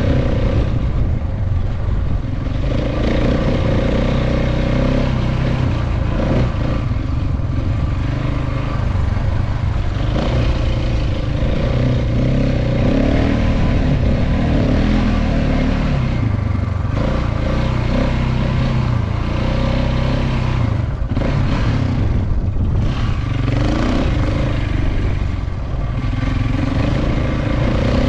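KTM 690 Enduro's single-cylinder engine running under way off-road, its pitch rising and falling with the throttle, over a steady rush of wind noise.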